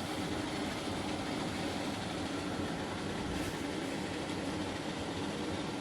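A steady rushing noise with a low hum, as a wok heats on the stove.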